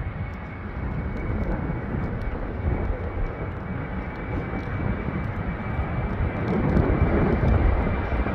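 Twin turbofan engines of a QantasLink Embraer E190 running as the jet rolls along the runway, a steady rumble with a faint high whine that grows louder toward the end.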